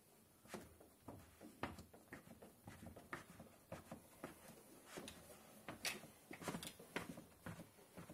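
Faint, irregular small taps and scrapes of a paper-towel-wrapped hand tool pressed along the edge of freshly installed window film on glass. This is the wicking or bumping step, squeezing the last water out from under the film edge.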